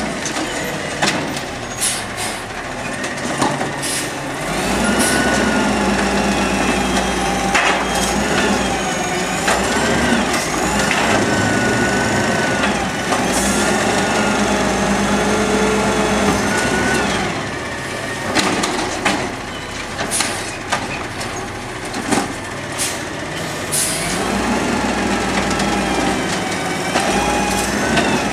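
Peterbilt 320 automated side-loader garbage truck working its hydraulic arm to grab, lift and empty wheeled trash carts, in several cycles. The engine revs up to drive the hydraulics, with a whine that bends up and down, and plastic carts bang and clatter as they are shaken into the hopper and set back down.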